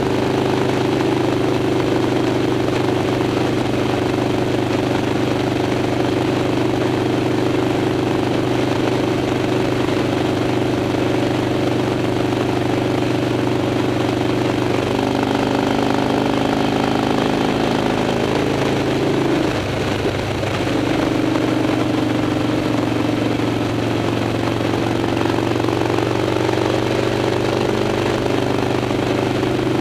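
Harley-Davidson Dyna's V-twin engine running steadily at freeway speed, heard through the bike's frame mount with road and wind noise. Its note shifts up about halfway through, drops away briefly about two-thirds of the way in, then settles back to a steady run.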